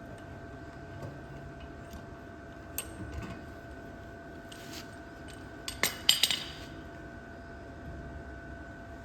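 A few sharp metal clinks and clanks: one about three seconds in, then a quick cluster of louder ones a little past the middle. A faint steady hum runs underneath.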